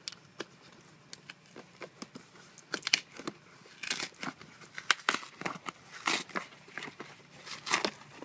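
Cardboard shipping box being torn open by hand: packing tape ripping off and cardboard flaps tearing, in a run of sharp, irregular rips and crackles that grow louder from about three seconds in.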